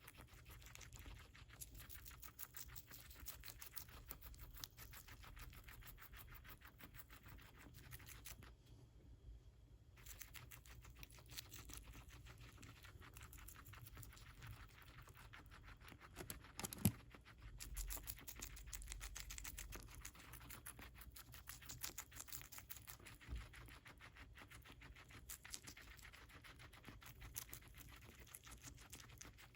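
Guinea pig chewing lettuce: a fast, steady run of small crisp crunches and tearing clicks. It breaks off briefly about nine seconds in, and there is one louder knock about seventeen seconds in.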